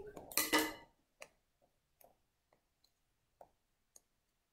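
Faint, scattered light clicks and taps, about one every half second to second, from fingers handling small sticky punched craft pieces.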